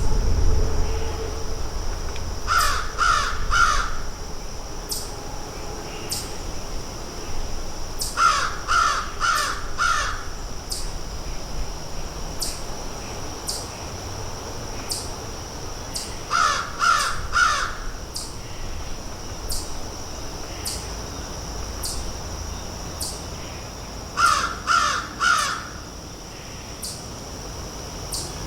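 Crows feeding: cawing in bunches of three or four harsh caws about every eight seconds, with scattered sharp pecking clicks in between.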